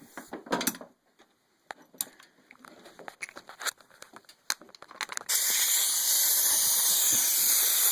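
Light clicks and handling knocks, then about five seconds in a loud, steady hiss of compressed air for two to three seconds that cuts off suddenly, as the air line is connected to a pneumatic rivet gun.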